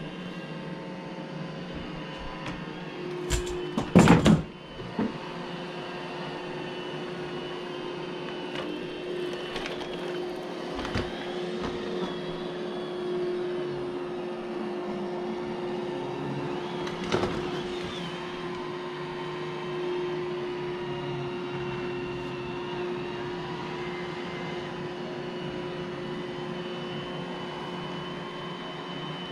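iRobot j7 robot vacuum running with a steady motor hum and a constant tone. A cluster of loud, sharp knocks comes about four seconds in, with a few lighter clicks later.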